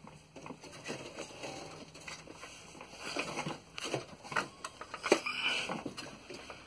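Hands working inside an open desktop PC case: scattered clicks, knocks and rustles of plastic and metal as the CPU cooler is pushed hard to free it.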